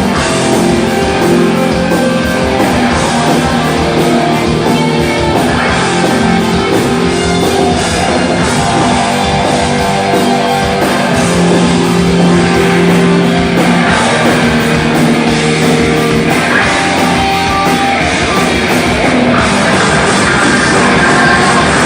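A rock band playing loudly live, with electric guitars holding sustained notes over a drum kit.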